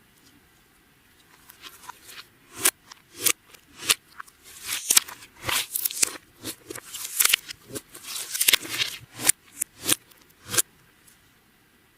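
Clear slime being squeezed and worked by hand, giving a dense run of sharp crackling pops and clicks that starts about a second and a half in and stops shortly before the end.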